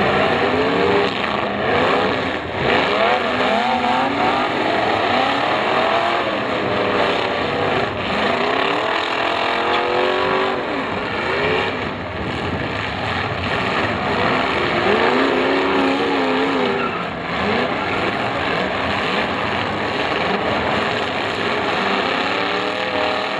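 Several demolition derby cars' engines running hard and revving together, their pitch rising and falling as the cars accelerate and reverse into one another.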